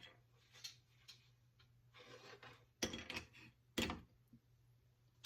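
Small objects being handled and set down on a desk: a scattering of light clicks and knocks, the two sharpest about three and four seconds in, with a brief rustle just before them.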